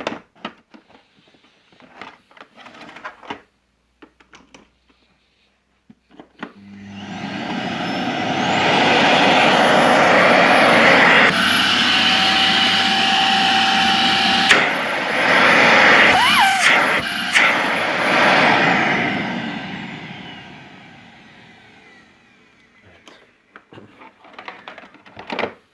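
Bosch Runn'n 2200-watt vacuum cleaner switched on, its motor whine rising as it spins up to full power. It runs loudly, with a steady high whistle joining in for a few seconds in the middle, then is switched off and winds down over a few seconds.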